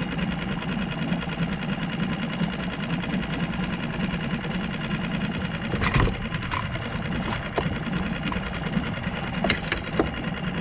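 Steady low mechanical hum, with a few sharp clicks and knocks. The largest knock comes about six seconds in.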